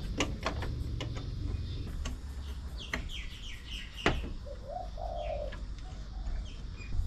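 Birds calling: a quick run of short high chirps about three seconds in, then a low dove's coo a second later. A few sharp clicks and knocks from hands working on the engine are heard around them.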